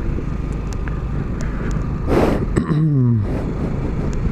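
Riding noise from a motor scooter on the move: steady engine and wind rumble. About two seconds in there is a short rush of noise, followed by an engine note falling in pitch.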